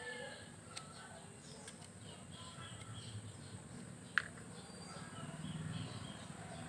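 Faint bird chirps in the background, with one sharp click about four seconds in.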